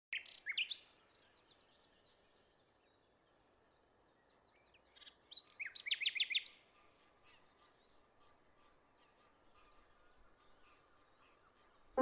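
Bee-eaters calling: a short burst of quick rising chirps at the start, then a louder rapid run of chirps about halfway through, with faint scattered chirps after.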